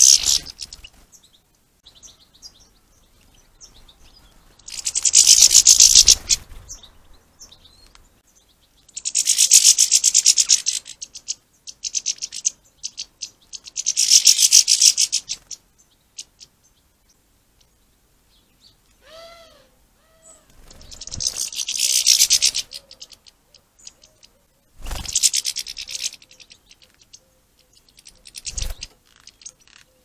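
A small songbird singing: about six short, high, rapid trilling phrases, each a second or two long, repeated every few seconds. About nineteen seconds in there is a single short lower call.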